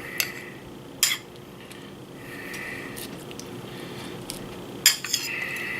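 A metal spoon clinking against a dish three times, sharp single knocks spread across a few seconds, as a topping is scooped and placed.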